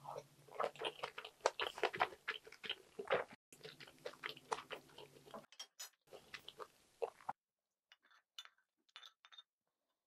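Close-miked chewing of a mouthful of food: many small wet mouth clicks, dense for the first few seconds and thinning out after about four seconds. A few faint clicks follow near the end.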